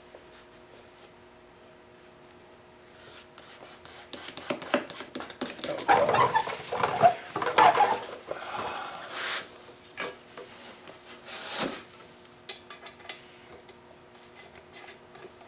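Hands working metal parts: rubbing, light clinks and scrapes as an AN fitting is oiled and threaded into an aluminium oil cooler. The handling starts a few seconds in, is busiest in the middle with a couple of louder swishing rubs, and trails off into scattered ticks.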